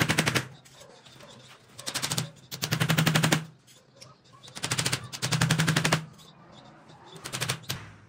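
Claw hammer driving nails into a wooden strip on a wooden-framed wire-mesh cage: about six bursts of rapid blows with short pauses between them.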